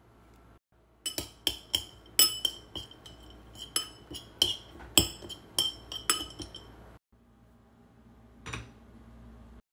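Metal spoon clinking against a ceramic bowl while stirring food, about fifteen sharp clinks over five seconds, each ringing briefly. Near the end the bowl is set down into a metal wire stand with a single soft knock.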